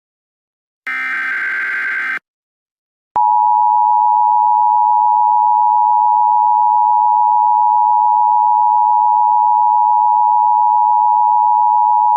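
Emergency Alert System tones: the last burst of SAME header data, a harsh warbling buzz of about a second, then a short silence. About three seconds in, the loud, steady two-tone EAS attention signal starts and holds without change.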